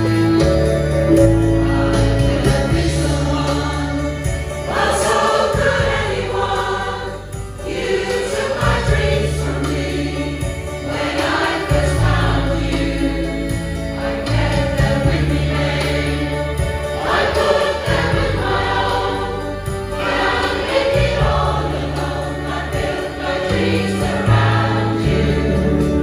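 Choir singing over an accompaniment of low held chords that change every couple of seconds.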